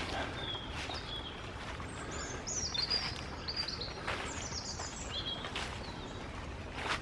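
Small birds chirping in quick, high twittering phrases, loudest through the middle, over footsteps falling about once a second.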